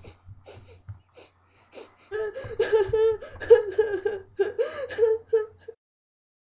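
A young woman sobbing and whimpering in high, wavering, broken cries from about two seconds in, after some short, faint breathy sounds. The crying cuts off suddenly near the end.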